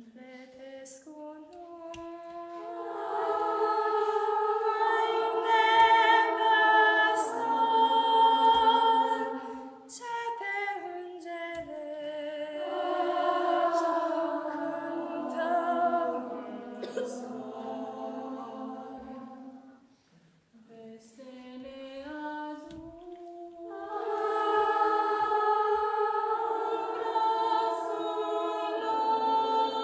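Children's choir singing a Romanian Christmas carol (colindă) a cappella, in long sung phrases with short breaks about ten and twenty seconds in.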